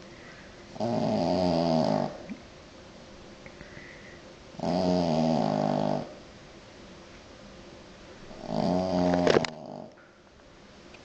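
French bulldog snoring loudly: three long snores about four seconds apart, the last one ending in a sharp peak.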